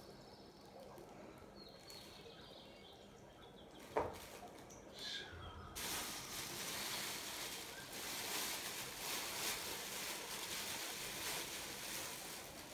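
Thin plastic bags rustling and crinkling as they are crumpled and handled, starting about six seconds in. A single sharp click comes just before, about four seconds in.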